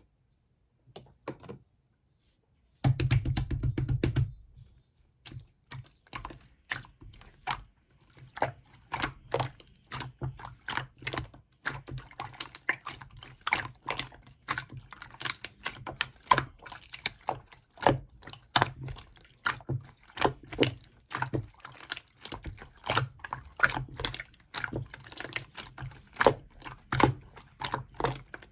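Slime being played with by hand, making a dense, irregular run of small clicks and pops. There is a short louder squishing stretch about three seconds in.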